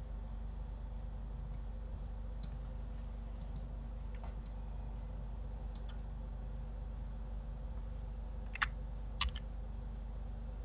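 Scattered clicks of a computer mouse and keyboard shortcut keys, a few soft single clicks and then two louder ones about a second apart near the end, over a steady low electrical hum.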